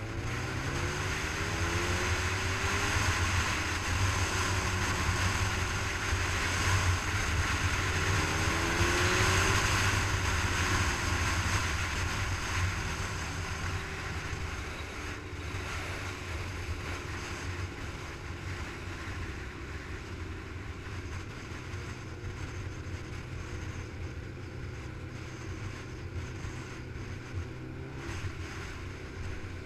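Motorcycle engine on the move, with wind rushing over the bike-mounted camera microphone. In the first ten seconds or so it speeds up through several rising pitch sweeps and gets louder, then settles into a steadier, quieter cruise.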